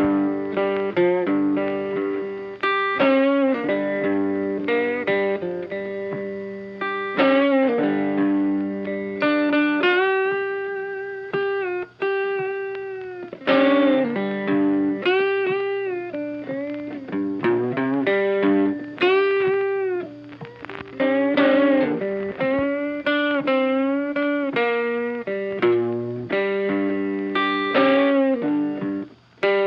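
Funky background music led by an electric guitar, with plucked notes and held notes bent and wavering in pitch.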